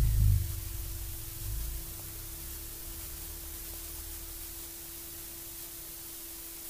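Steady background hiss with a faint low hum. There are two dull low thumps, one right at the start and a smaller one about a second and a half in.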